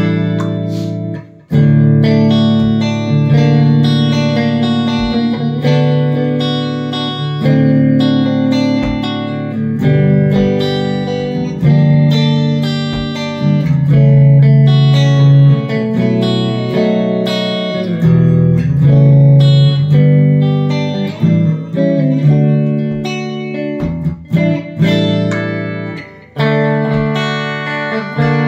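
Harley Benton Fusion-II electric guitar with alnico pickups played amplified: picked chords and single notes ringing out and changing every second or so, with brief breaks about a second in and near the end.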